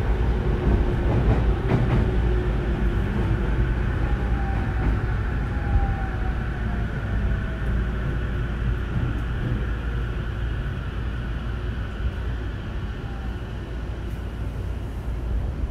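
Running sound inside a JR East E231 series 0-numbered electric train's motor car as it slows down: a steady rumble with a motor whine that falls slowly in pitch. The train is braking toward a station stop.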